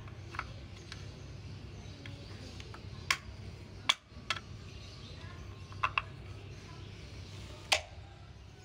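Plastic wheel cap being pressed onto a Suzuki Mehran's wheel: about seven sharp, irregular clicks and knocks as it is fitted, over a low steady hum.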